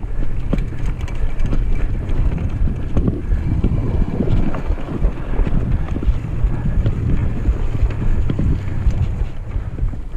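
Mountain bike ridden over a rough grass and dirt trail: steady wind rumble on the camera's microphone, with frequent knocks and rattles from the bike jolting over bumps.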